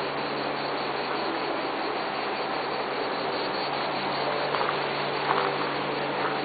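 Steady outdoor ambience: an even hiss with a low hum underneath, and a few faint short chirps about four and a half and five and a half seconds in.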